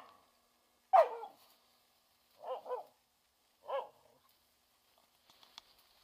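A hunting dog barking in short single barks: a loud bark about a second in, a quieter double bark around two and a half seconds, and one more near four seconds. Faint rustling near the end.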